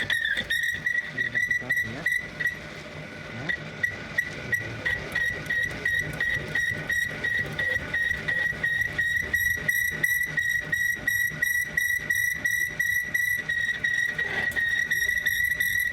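A workshop machine giving a steady high-pitched whine, with a rapid regular ticking of about three or four ticks a second.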